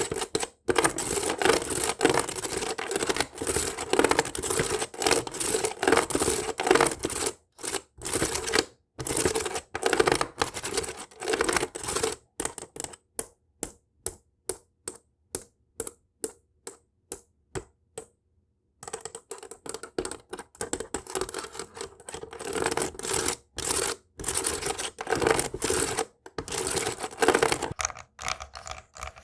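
Fingernails scratching fast and hard on a hard, textured object, in quick dense strokes. In the middle this gives way to a run of separate nail taps, about three or four a second, before the fast scratching resumes.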